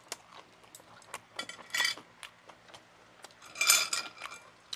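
Chopsticks and utensils lightly clicking against ceramic plates and bowls, with two louder ringing clinks about two seconds and three and a half seconds in.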